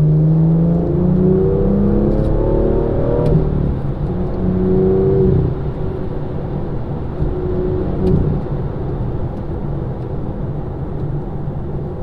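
BMW M2 F87's turbocharged N55 straight-six, fitted with a Bob Williams aftermarket exhaust, accelerating onto a motorway. The engine note rises in pitch, breaks at a gear change about three seconds in and rises again, then eases off about five seconds in to a quieter, steady run.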